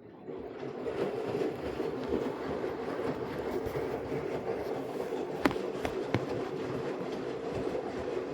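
Samsung AddWash front-loading washing machine running its wash cycle: the drum starts turning about a third of a second in and keeps tumbling the load with a steady motor hum, and two sharp knocks come a little past the middle.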